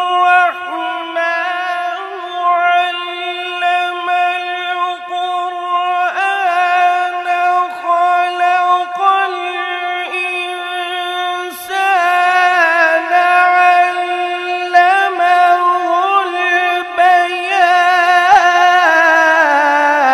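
A man's voice in melodic Quran recitation (tilawat), holding one long drawn-out note with small wavering ornaments; near the end the pitch drops lower.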